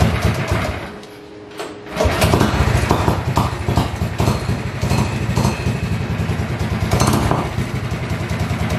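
Predator 212cc Ghost single-cylinder four-stroke kart engine, hard to start, pulled on its recoil starter and catching about two seconds in after 27 pulls, then running with a rapid, steady beat.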